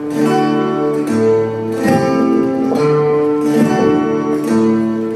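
Instrumental music: sustained chords over a bass line that changes about once a second.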